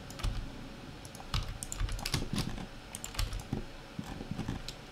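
Computer keyboard keystrokes: irregular clicks of keys, a few in quick succession, then short pauses.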